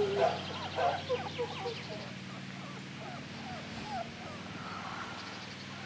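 Whippet puppies whining and squeaking, many short high calls overlapping, most in the first second or two and then fewer, over a steady low hum.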